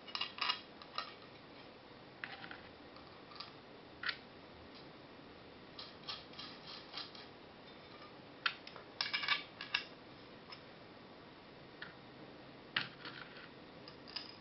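Small metal hardware clicking and clinking as countersunk screws, washers and spacers are fitted by hand into a metal case plate: faint scattered clicks, some in quick clusters.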